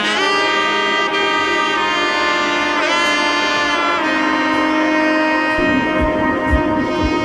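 Music with long held notes that shift pitch a few times; a low drum beat of about two thumps a second comes in about two-thirds of the way through.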